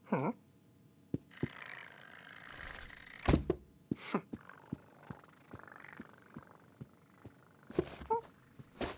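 Cartoon sound effects of a cat: a short falling vocal cry at the start, scattered knocks and taps, a stretch of rustling through the middle, and a brief mew near the end.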